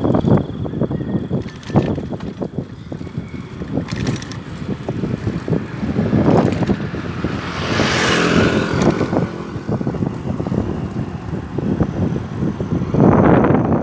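Wind rushing over the microphone and road rumble from a bicycle being ridden on a paved road, with frequent small knocks and rattles. A louder rushing swell rises and falls about eight seconds in, and another near the end.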